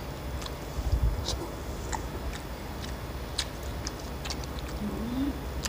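Eating sounds: scattered small clicks and smacks from chewing and from fingers mixing rice on metal plates, with a brief low thud about a second in.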